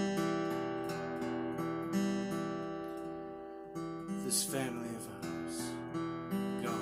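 Solo acoustic guitar strumming chords between sung lines of a folk-style song, with a sliding sound around the middle.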